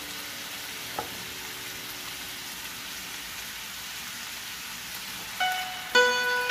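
Ground pork and onion sizzling steadily in a non-stick frying pan, with one light click about a second in. A few notes of background music come in near the end.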